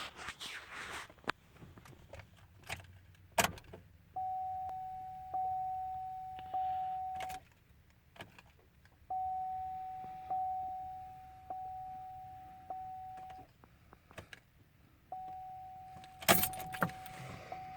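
Keys jangling and clicking in the ignition of a 2005 Chevy Colorado, with the truck's warning chime dinging a little over once a second in three runs that stop and start again. No engine cranking is heard: an intermittent no-crank that was traced to a failing starter.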